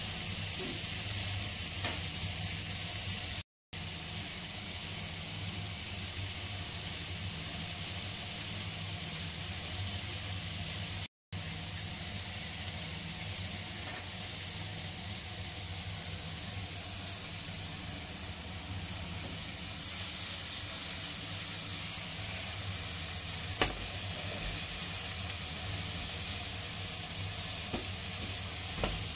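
Sliced onions sizzling steadily in olive oil in a frying pan as they brown. The sizzle cuts out for an instant twice early on.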